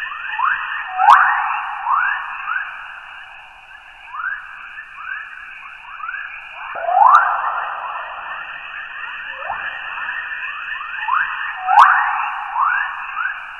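NASA's recording of Earth's electromagnetic emissions, the 'chorus' radio waves in the magnetosphere, made audible. A steady hiss is laced with many rising, bird-like chirps at irregular spacing, a few much louder ones about a second in, near the middle and near the end.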